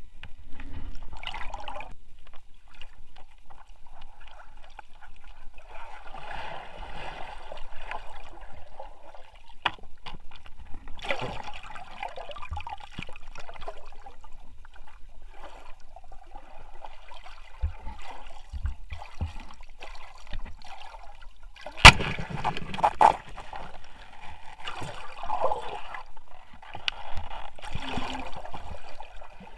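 Stream water sloshing and splashing in irregular surges as someone moves through it fishing, with one sudden loud hit about two-thirds of the way through.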